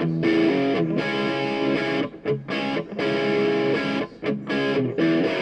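Background music led by a distorted electric guitar, its notes broken by a few short pauses.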